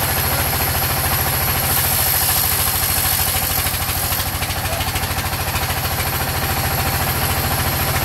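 A sawmill's engine running at a steady speed with a fast, even chugging beat as it drives a large band saw. A thin, steady high whine sits above it.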